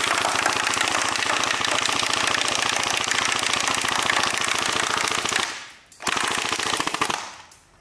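Electric airsoft AUG rifle firing full-auto, a rapid rattle of shots over the whine of its gearbox motor, with its battery running low. One long burst stops about five and a half seconds in, and a short burst of about a second follows.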